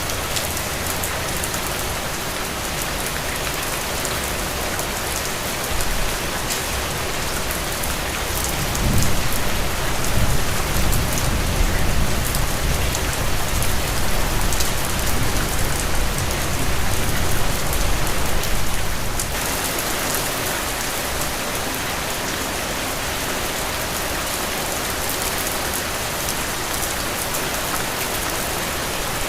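Heavy rain falling steadily, with a low rumble of distant thunder rolling from about nine seconds in and fading out some ten seconds later.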